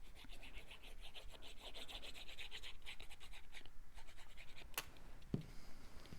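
Quick back-and-forth scratchy rubbing on cardstock, about five or six strokes a second for roughly three seconds, as a paper piece is worked onto the card. Then a light tick and a soft thump near the end.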